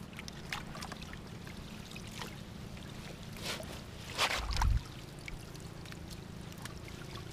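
Shallow paddy water splashing and dripping as people wade and pull a fishing net through it, with a louder splash and a heavy low thump a little past halfway, over a steady low hum.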